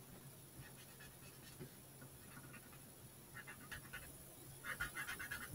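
Felt-tip marker drawing short strokes on card stock: faint repeated scratching squeaks, in small clusters that grow busiest near the end.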